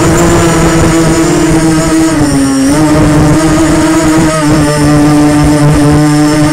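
Quadcopter drone's motors and propellers running with a steady, loud buzzing whine. The pitch dips briefly about two and a half seconds in, then holds steady again.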